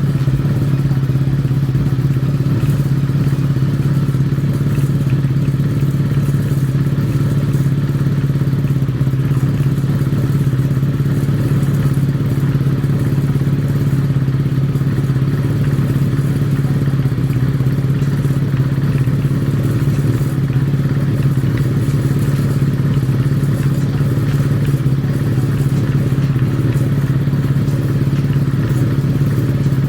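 Kawasaki air-cooled inline-four motorcycle engine running at a steady, unchanging speed through a megaphone-type aftermarket silencer.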